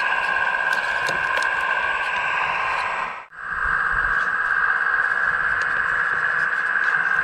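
Small electric motor and hydraulic pump of an RC scale construction model running with a steady whine, with faint ticks over it. The sound drops out for a moment about three seconds in, then comes back.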